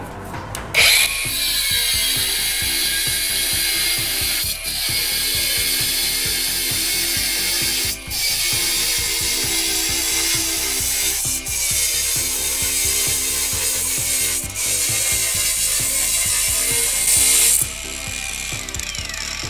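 20-volt cordless angle grinder with a 125 mm, 1.6 mm Kraton abrasive disc spinning up about a second in and cutting through 10 mm steel rebar: a loud, steady, high-pitched grinding with four brief dips a few seconds apart. It stops near the end and the motor winds down with a falling whine.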